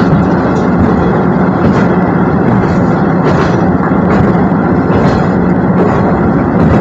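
Tarumi Railway Hi-Mo 330 diesel railcar running, heard from inside the cabin: a steady engine drone over the rumble of wheels on the rails, with a few faint clicks.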